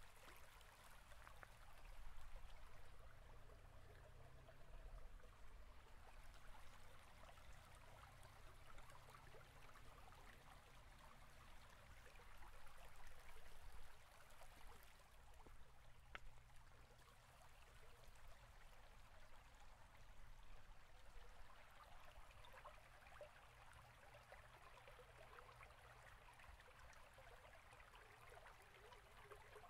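Near silence: a faint steady hiss with a low hum, room tone.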